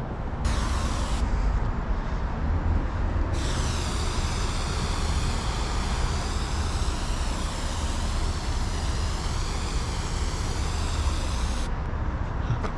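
Aerosol spray-paint can spraying: a short burst, then one long continuous hiss of about eight seconds that wavers in tone as the can moves. A steady low rumble runs underneath.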